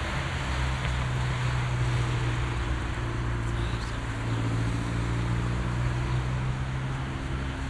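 A steady low mechanical hum under an even hiss.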